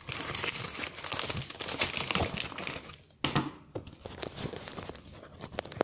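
Clear plastic bag crinkling as it is cut open with scissors and handled, densest over the first three seconds, then softer rustling and scattered clicks, with one sharp click near the end.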